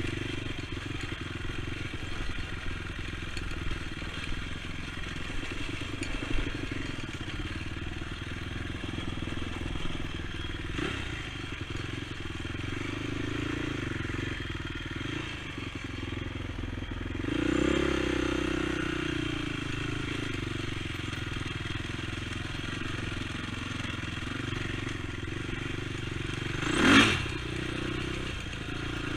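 ATV engine running steadily while riding, swelling for a couple of seconds around the middle. A brief loud rushing burst comes near the end.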